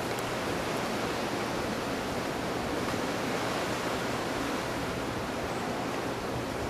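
Hurricane wind blowing through trees: a steady, unbroken rush of noise.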